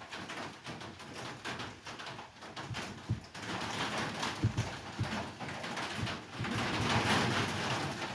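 Scattered small knocks and clicks of hands fitting an ignition coil and its wire on a Stihl MS311 chainsaw, over a steady hiss that grows louder about three seconds in.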